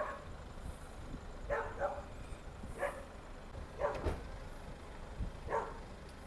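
A dog barking in a string of short barks about a second apart, over a low steady rumble.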